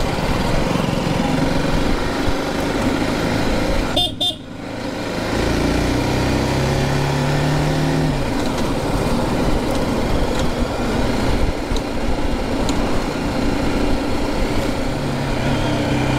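Motorcycle ride on a road: steady wind noise over a BMW G310GS's single-cylinder engine. The sound breaks off briefly about four seconds in, and the engine note climbs as the bike accelerates a couple of seconds later.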